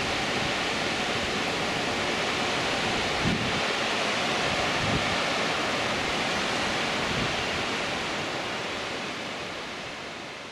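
Fall River rushing down rocky cascades: a steady hiss of falling water, with a few low thumps of wind on the microphone. It fades away near the end.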